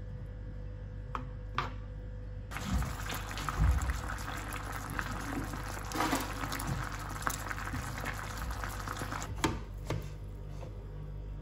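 Sauce of a tofu and chicken stir-fry sizzling and bubbling in a non-stick frying pan, starting suddenly a couple of seconds in and dying away near the end. A few sharp taps of a metal spoon against the pan come before and after it.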